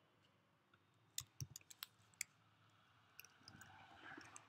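Faint, scattered clicks of a computer keyboard and mouse while code is pasted and edited: a quick cluster of several clicks about a second in, and a few more near the end.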